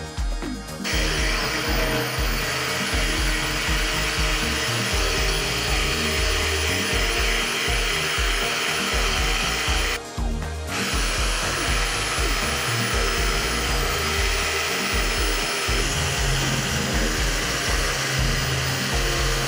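Electric jigsaw running and cutting curves in plywood, starting about a second in, with a brief break about ten seconds in.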